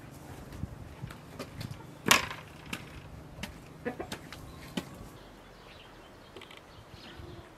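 A few scattered light clicks and taps, with one sharper knock about two seconds in, over faint outdoor background.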